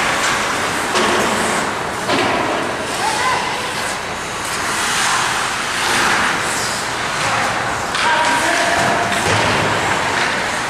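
Ice hockey play: skates scraping across the ice, sticks and puck clacking and thudding against the boards, with players' short shouts now and then.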